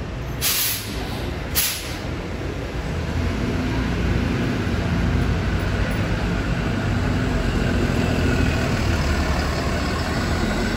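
Hybrid transit bus: two short hisses of compressed air about half a second and a second and a half in, then the bus's drivetrain drone with a faint whine, growing louder from about three seconds in as it moves off.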